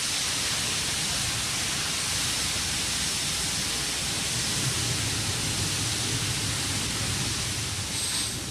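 Loud, steady rushing hiss of gas venting at the rocket's launch pad. It starts abruptly and stops about eight seconds later.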